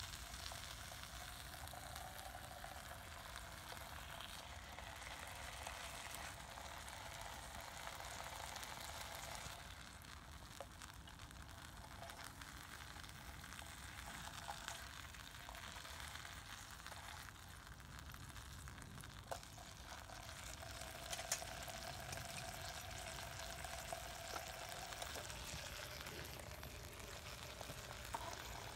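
Bacon rashers sizzling steadily in a small camping frying pan over a solid fuel block, with a few light clicks and scrapes as a spatula turns them.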